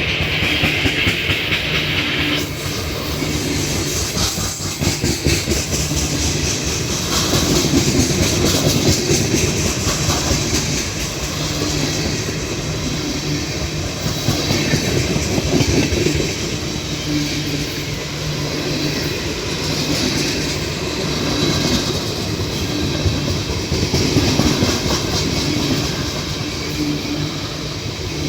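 Heavily loaded Ferromex freight train rolling past, its wheels clacking over the rail joints in a steady, rapid rhythm over a continuous rumble.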